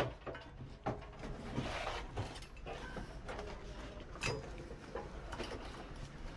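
Scattered knocks and scrapes as a Daikin split AC outdoor unit is lifted by hand and manoeuvred onto its wall-mounted stand, with the sharpest knock about four seconds in.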